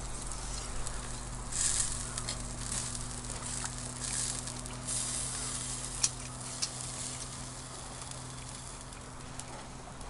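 A piece of food sizzling on a wire-mesh grill over a charcoal fire, a steady hiss that swells louder a couple of times. A few sharp clicks come about six seconds in.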